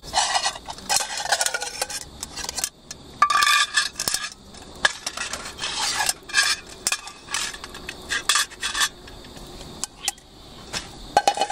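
Aluminium camping pot being handled and set on the pot supports of a gas canister stove: a few spells of metal scraping and clattering with sharp clicks between them, loudest at the start and about three seconds in.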